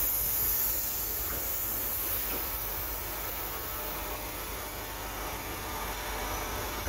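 Two coupled Alstom Régiolis regional multiple units rolling out past the platform on departure: a steady running noise with a hiss over a low rumble, slightly louder in the first second.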